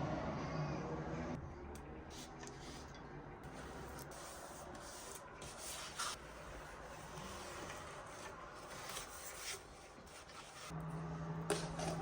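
Faint rubbing and scraping with a few scattered light clicks.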